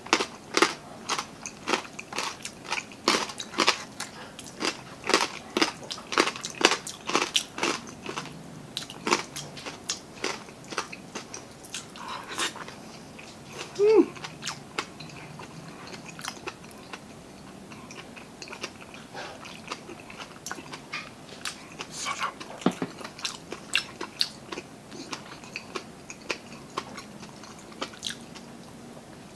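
Close-up chewing of crispy lechon kawali (deep-fried pork belly with crackling skin): rapid, sharp crunches for the first ten seconds or so, then slower, softer chewing. One brief louder sound comes about halfway through.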